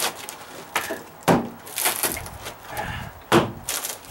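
Hammer blows on a pry bar driven into dry-rotted OSB plywood, the rotten wood cracking and splintering as it breaks away. Several sharp strikes about half a second to a second apart.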